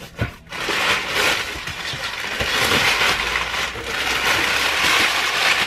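Packaging rustling and scraping as a box of supplies is unpacked by hand, a continuous uneven rustle that starts about half a second in.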